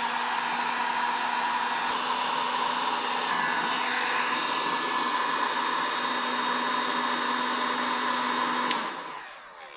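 Electric heat gun blowing steadily while shrinking solder-seal wire connectors, with a steady hum under the rush of air, then switched off and winding down about nine seconds in.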